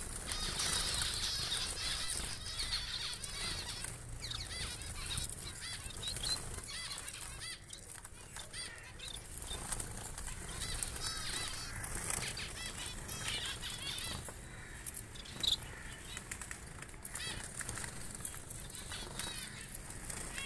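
A caged flock of Bengalese (society) finches and spice finches chirping, with many short, high, repeated call notes, and wings fluttering as birds flit between perches.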